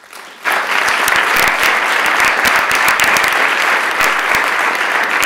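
A chamber full of legislators applauding, the clapping starting sharply about half a second in and holding steady.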